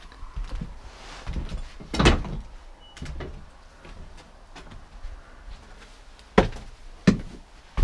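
Old wooden door being handled, with a loud knock about two seconds in and then three sharp thuds about two-thirds of a second apart near the end.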